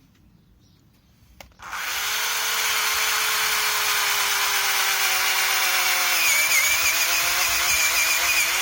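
Cordless drill starting up a little under two seconds in and running steadily as it bores a hole through a wooden branch, its motor pitch sagging slightly under load about six seconds in.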